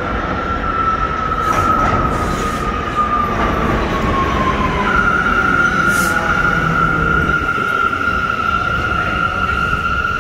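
R179 subway train pulling into the station and slowing along the platform, with a constant rumble. A high whine slides slightly lower over the first few seconds, jumps back up about five seconds in and then holds steady.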